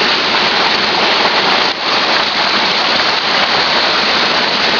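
Waterfall: a loud, even rush of falling water, which briefly dips about a third of the way in.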